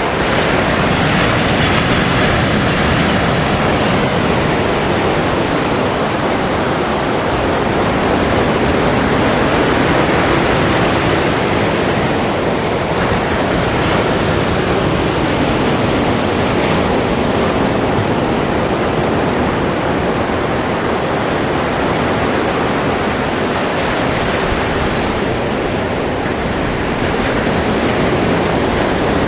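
Ocean surf: a continuous rush of breaking waves that swells and eases slowly, with no single distinct crash.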